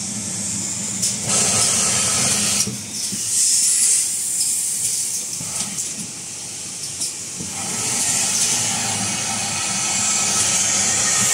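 Automatic kitchen towel roll wrapping machine running: a steady hiss over a low hum, with a few light clicks, the hiss swelling louder about a second in and again near the end.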